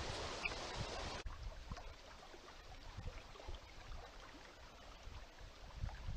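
Wind on an outdoor camera microphone: a dense hiss with low rumbling that drops abruptly about a second in to a quieter low rumble with faint scattered ticks.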